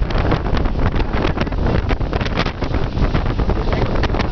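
Wind buffeting the microphone from a moving vehicle, a loud, irregular flutter over a steady low road and engine rumble.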